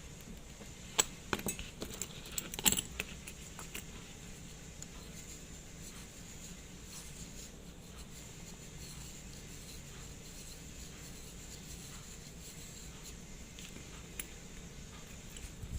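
Small sharp metallic clicks and taps from a Seiko Kinetic 5M43 watch being handled with repair tools, a quick cluster in the first few seconds. Then only a faint steady hiss, with one more light click near the end.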